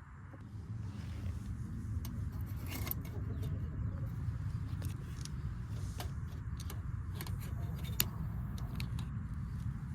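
Steady low rumble of a car on the move, with scattered light clicks and rattles.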